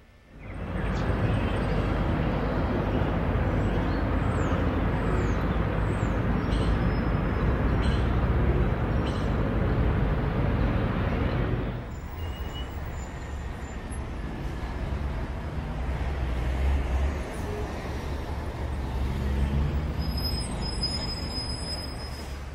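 Steady street noise with traffic, picked up on a camera microphone. It is louder for about the first twelve seconds, then drops to a lower rumble.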